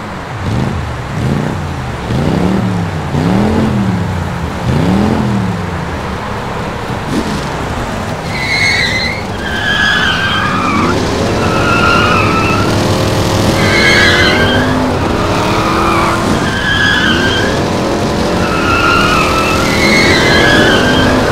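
A car drifting. The engine revs up and down in rising and falling sweeps. From about eight seconds in, the tyres squeal again and again over the revving engine.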